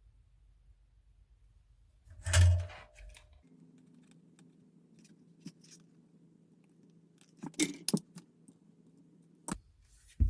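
Small tools and parts being handled on a workbench: a knock about two and a half seconds in, then scattered sharp clicks and snips near the end.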